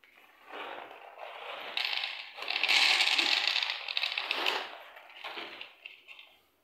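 Dry cat food poured from a bag into a plastic bowl: a dense rattle of kibble pellets hitting the bowl and each other. It swells to its loudest around the middle and tails off near the end.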